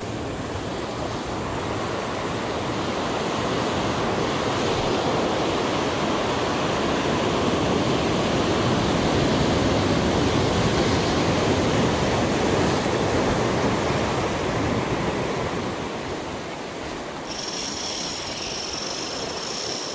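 Surf washing and breaking over a rocky shoreline, a steady rushing wash that swells and eases. About 17 seconds in, a steady high-pitched buzz starts over the surf: the spinning reel's drag giving line as a hooked fish pulls.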